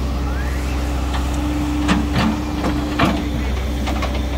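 Diesel engine of a Volvo crawler excavator running with a steady hum and a constant whine. A few sharp knocks come in the middle as the bucket works the earth and debris.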